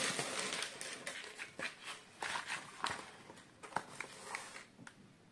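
Rustling and crinkling of a shipping bag as a hand rummages inside and pulls out a small boxed item, with scattered light clicks and taps; the handling noise thins out toward the end.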